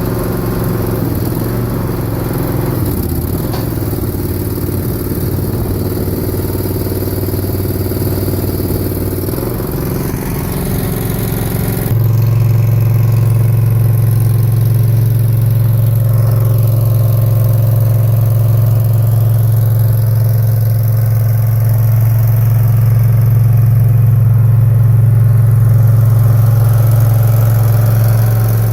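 Mini skid steer's small engine running steadily. About twelve seconds in the sound changes abruptly to a louder, steadier hum.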